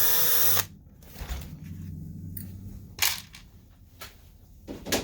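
Cordless drill battery pack being swapped: a half-second burst of harsh noise at the start, then handling scrapes and clicks, with two sharp plastic clacks about three seconds in and near the end as the pack is pulled and a fresh one latched in.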